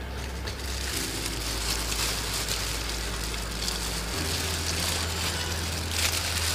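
Crisp breaded onion ring crackling as gloved hands squeeze and tear it apart, over soft background music with slow, low bass notes.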